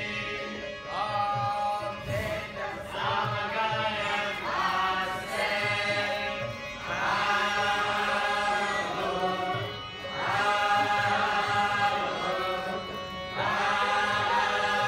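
Devotional chanting sung in repeated phrases over a regular hand-drum beat and a steady low drone.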